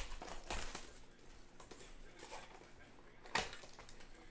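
Handling and opening a sealed trading-card box and its packs: scattered rustling and light clicks of cardboard and wrapper, with one sharper snap about three and a half seconds in.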